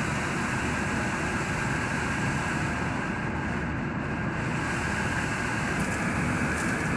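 Steady, unbroken mechanical drone of machinery and ventilation aboard an Oberon-class submarine, with a faint steady whine above it.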